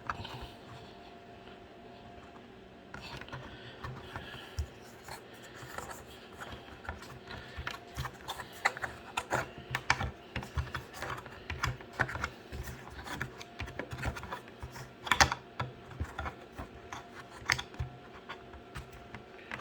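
Plastic chicken watering cup being screwed by hand into a drilled hole in a plastic 5-gallon bucket, giving rapid irregular clicks and scrapes that start about three seconds in.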